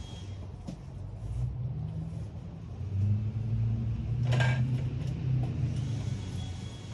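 A large engine running with a low drone, getting louder about three seconds in and easing off near the end, with a short hiss about four and a half seconds in.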